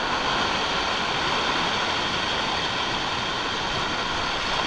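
Ocean surf breaking and washing over the rocks, a steady rushing noise.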